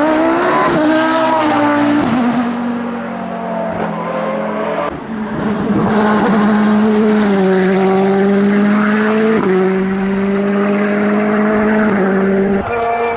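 Hillclimb race car engine at full throttle, working up through the gears: its pitch holds or climbs, then drops at each of several upshifts.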